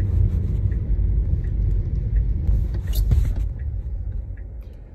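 Low rumble of a Tesla's tyres and road noise heard inside the cabin while driving on a wet road, with a brief hiss about three seconds in. The rumble fades near the end as the car slows.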